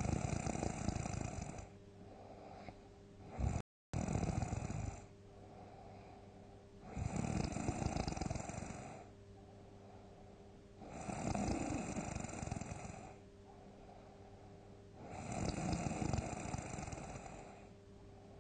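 A person snoring loudly in deep sleep, with one big rough snore about every four seconds and quieter breathing between them. There are five snores in all, and the sound cuts out for a split second just after the second one.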